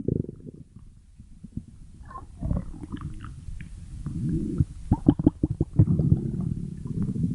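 A person's stomach growling: quiet at first, then low gurgling rumbles that waver in pitch, starting about two and a half seconds in, with a quick run of sharp pops about five seconds in.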